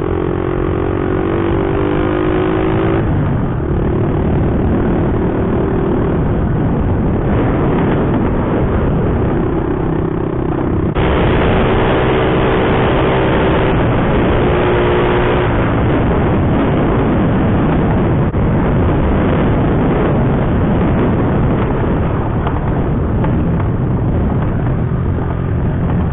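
Small four-stroke single-cylinder Honda mini bike engine running while riding, heard from the bike itself, under heavy wind rush and gravel road noise. The engine note shifts pitch several times, and the sound changes abruptly about three and eleven seconds in.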